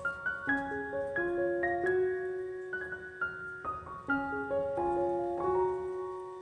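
Background piano music: a slow melody of overlapping, held notes.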